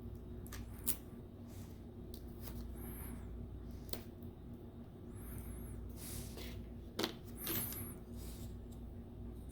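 Small sharp clicks and light handling of tablet parts and tools, with a few brief, faint, high-pitched squeaks.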